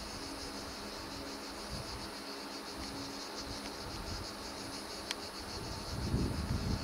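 Insects chirping in a steady, pulsing high buzz, over a faint low steady hum. Wind rumbles on the microphone near the end.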